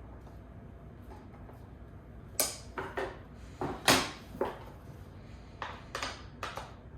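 Office chair parts being handled and fitted during assembly: a run of sharp knocks and clatters beginning about two and a half seconds in, the loudest about four seconds in.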